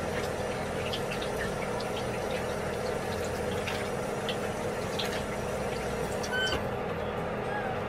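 Tap water running steadily into a sink while hands are washed, with a few faint clicks.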